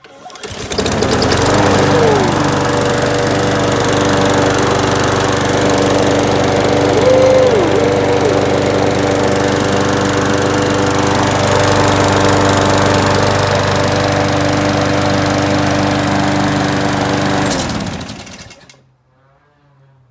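Gas push lawn mower engine catching on the pull start and running at a steady speed on a test run after repair, then shutting off and winding down to a stop about 18 seconds in.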